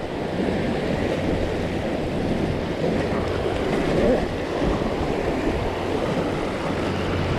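Sea surf washing steadily against a rocky shore, mixed with wind on the microphone, over a low steady hum.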